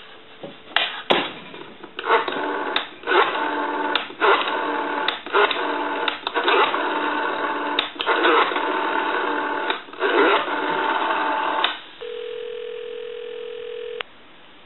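Telephone line sounds as a number is dialed on an antique wooden wall telephone's rotary dial: a run of buzzing line tones broken by many sharp dial clicks. Near the end comes a single steady ringback tone for about two seconds, the called number ringing.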